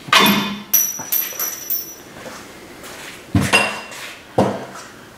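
Several sharp metallic clinks and knocks, some followed by a short high ringing, as tools and suspension hardware are handled while the front shock absorber's lower mounting bolt comes out. A quick run of them comes in the first two seconds, then three more about halfway through.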